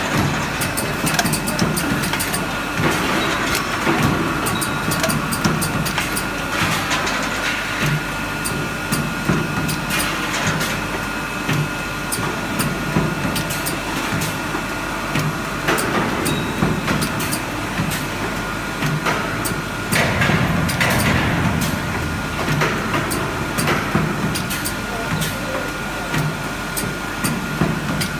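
Automatic PET bottle blow-moulding machine and leak-tester line running: a steady machine din with a thin steady whine, broken by frequent clicks and clacks of its moving parts.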